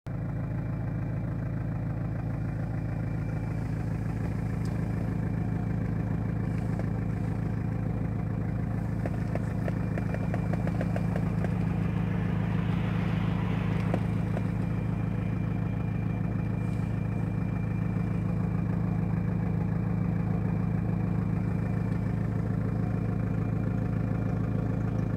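Car engine idling steadily, heard from inside the cabin, with a brief swell of hissing noise about halfway through.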